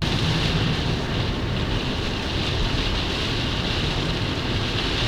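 Gale-force storm wind blowing steadily: a dense rush with low buffeting rumble on the microphone.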